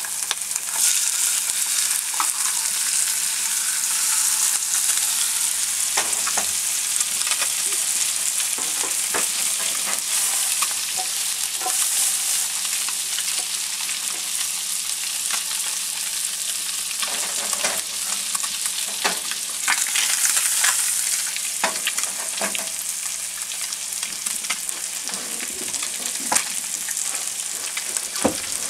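Butter and oil sizzling in hot frying pans, a steady high hiss, as sliced onions, shiitake mushrooms and sun-dried tomatoes are sautéed alongside pan-fried fish fillets. Scattered clicks and knocks of the pan and utensil break in as the vegetables are tossed.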